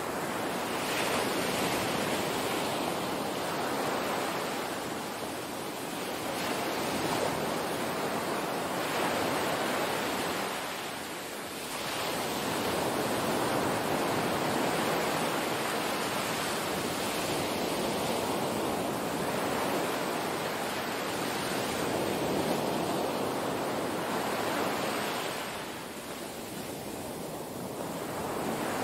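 Small waves washing up on a sandy beach: a steady rush of surf that swells and eases every few seconds, with a couple of brief lulls.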